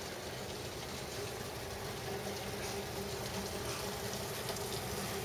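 Heavy summer rain pouring steadily, heard from indoors through a window.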